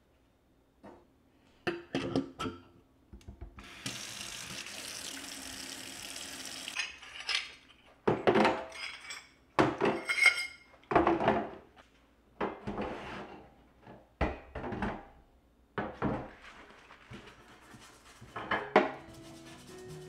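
Cast-iron stove grates clank as they are lifted off a gas range. A tap then runs for about three seconds, and the grates are scrubbed with a brush and knocked against a stainless steel sink in soapy water, in a string of short scraping and clattering bursts.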